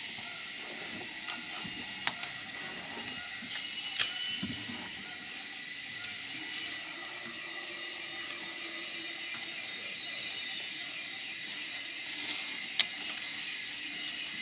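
Steady high-pitched droning of tropical forest insects. Three short sharp clicks or snaps cut through it, the loudest near the end.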